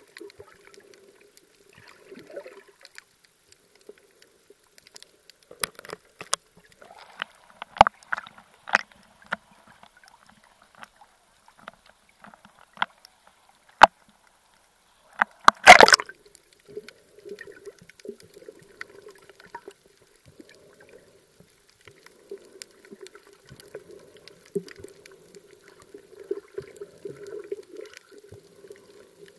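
Muffled underwater gurgling and water movement. About halfway through the camera comes up to the surface, bringing a run of sharp slaps and clicks and one loud splash, then the muffled burbling returns.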